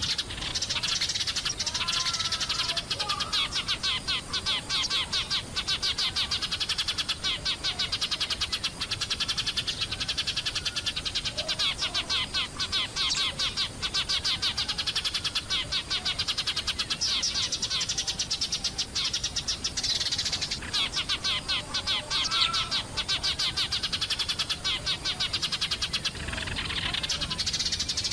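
A flock of Eurasian tree sparrows chirping continuously, a dense, rapid chatter of many short chirps.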